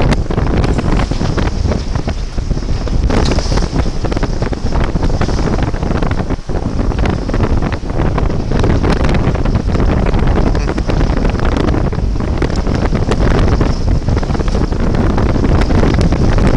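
Wind buffeting the microphone aboard a sailboat under way: a loud, rough rumble strongest in the lows that never lets up.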